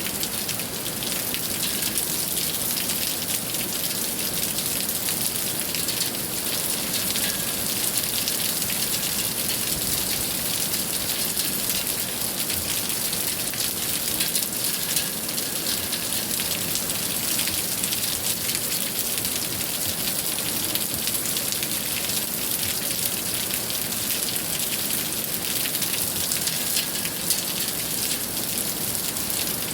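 Steady rain falling, with a dense, even sound of many small drops hitting a surface.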